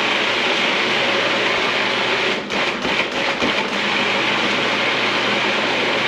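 An old food processor's motor running steadily under load as it purées a thick avocado-and-cream sauce, with a few brief dips in the sound around the middle.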